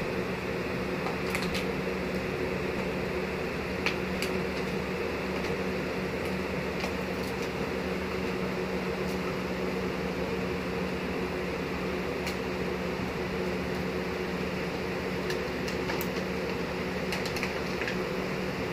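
Electric box fan running with a steady whirring hum, with a few light clicks scattered over it.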